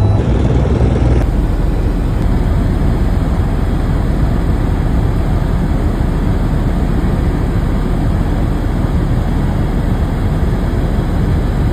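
Helicopter noise heard from inside the cabin: a loud, steady rush with a heavy low rumble.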